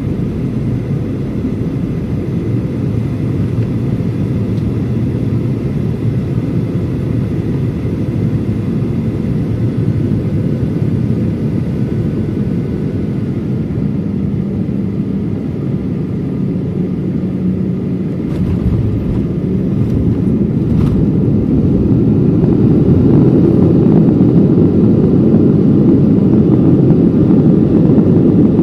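Cabin noise inside a Boeing 737-800 on its landing approach: the steady rumble of its CFM56 engines and rushing air. About two-thirds of the way through come a few knocks as the wheels touch down. The rumble then grows louder and stays loud, typical of reverse thrust and braking on the landing roll.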